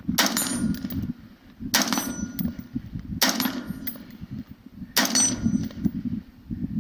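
Four gunshots about a second and a half apart, each with the ringing clang of a hit steel target.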